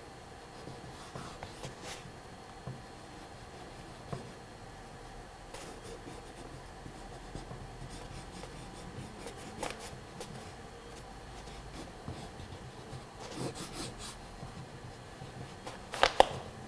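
A stick of charcoal scratching and rubbing across sketch paper in quick, sweeping strokes. There are a few sharper taps, the loudest about a second before the end.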